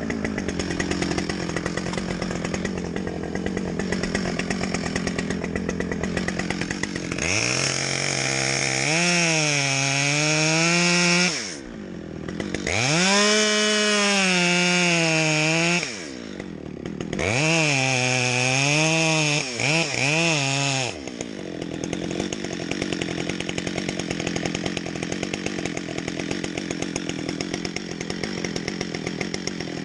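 Chainsaw running steadily, then opened up to full throttle in three long runs between about 7 and 21 seconds in, its pitch dipping and rising as it cuts under load, before dropping back to a lower running note. This is the back cut on a back-leaning tree, made first so felling wedges can be set.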